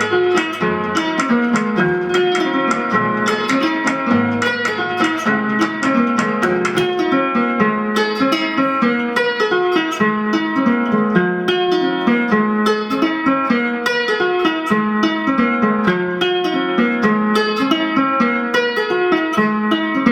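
Guitar music: plucked notes in a steady, repeating pattern, with no singing.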